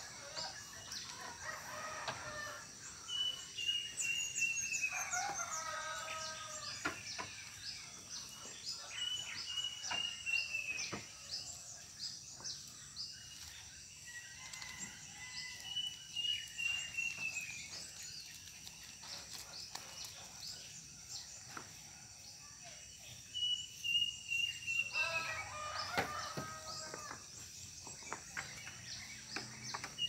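A cuckoo of the kind known as sirit uncuing or kedasih repeats a long, high whistled note that drops at the end, about every six seconds. A rooster crows twice, about five seconds in and near the end, and short chirps from small birds or insects run throughout.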